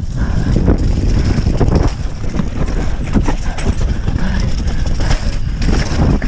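Downhill mountain bike descending a rough, muddy dirt trail at speed: a steady rush of wind on the microphone and tyres on dirt, broken by irregular knocks and rattles from the bike over bumps.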